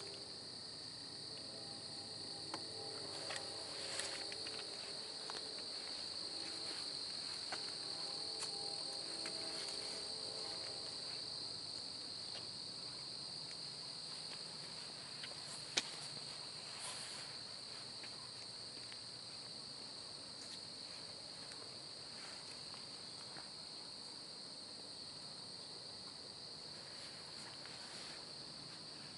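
Steady, high-pitched chorus of night insects, with scattered light clicks and one sharp click about sixteen seconds in.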